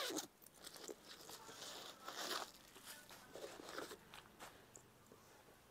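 Faint rustling and crinkling of a handbag being handled and opened up, with scattered small clicks; it goes quiet after about four and a half seconds.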